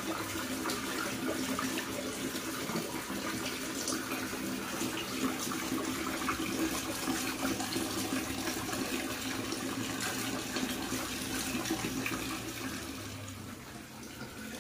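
Water running from a wall tap into a plastic basin, with splashing as a baby monkey is washed in it. The sound fades near the end as the tap is turned off.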